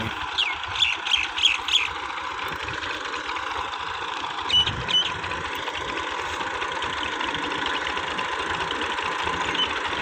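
Massey Ferguson 240 tractor's three-cylinder diesel engine running under load while pulling a ridger, a steady drone that grows louder as the tractor comes closer. Short high chirps sound over it in the first two seconds and again about halfway through.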